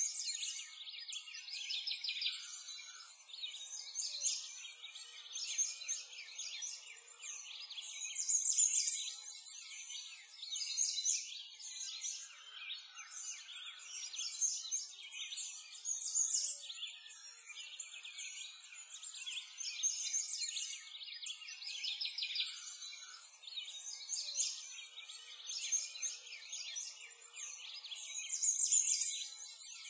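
Dense chorus of small songbirds chirping and twittering without pause, all high-pitched with no low sounds beneath.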